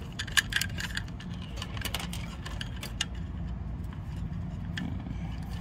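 Light clicks, taps and rubbing from hands working insulated motor wires through a fan motor's plastic junction box and handling a metal connector locknut, over a steady low hum. The clicks are busiest in the first few seconds, with one sharper tap about half a second in.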